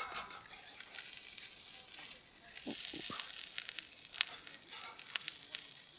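Steady sizzling hiss from a freshly cooked cheese pizza as a metal spatula draws it out of a small folding steel wood stove, with a run of sharp clicks and ticks in the second half, one louder than the rest.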